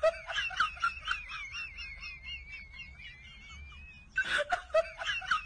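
A person's high-pitched giggling: a thin wavering squeal of laughter broken into quick pulses, then louder bursts of laughter about four seconds in.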